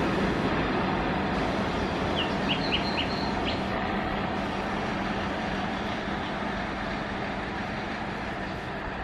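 Passenger train running on the rails and moving away, its rumble fading steadily. A few short bird chirps come in about two to three seconds in.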